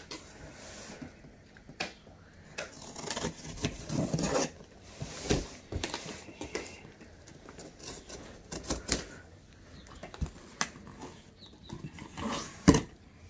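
A knife slitting the packing tape on a cardboard box, with irregular scrapes and rustles of the cardboard. Near the end the flaps are pulled open with a sharp crack.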